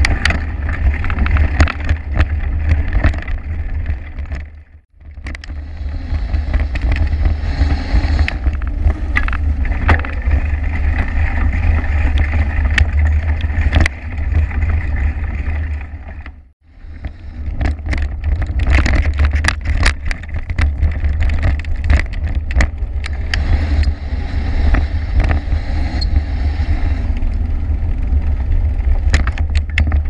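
Bicycle riding over a dirt road, heard through a handlebar-mounted camera: a heavy low rumble of wind and road vibration on the microphone with frequent sharp clicks and rattles. The sound dips out briefly twice, about five seconds in and just past the middle.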